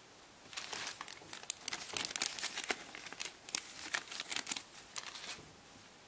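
Clear plastic bag crinkling and rustling as a wooden-stick cotton swab is pulled out of it: a dense run of sharp crackles that starts about half a second in and stops shortly before the end.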